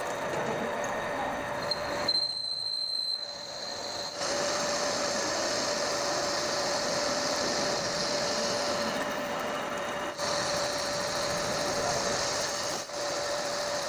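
Manual metal lathe turning a steel workpiece, the tool cutting and throwing off curled chips: a steady cutting noise with a constant mid-pitched whine. It dips briefly about two to three seconds in.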